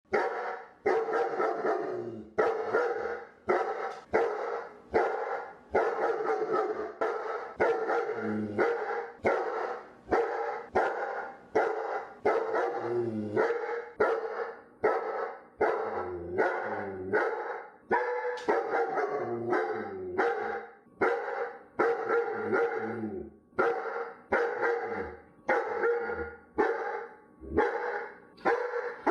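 Dog barking over and over, short barks following one another about once or twice a second with brief gaps between runs.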